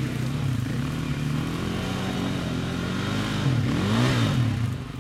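Dirt bike engine under heavy load as the bike ploughs through a deep mud bog, its rear wheel spinning. The revs dip, then rise sharply and fall back near the end.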